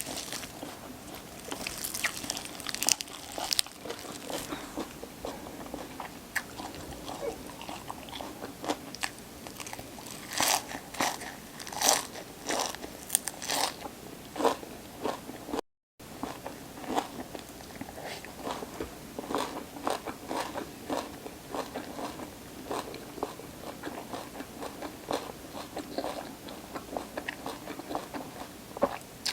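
Close-miked crunchy biting and chewing of raw vegetables such as radish and baby pepper, a steady run of sharp crunches with a louder flurry near the middle. The sound cuts out completely for a moment about halfway.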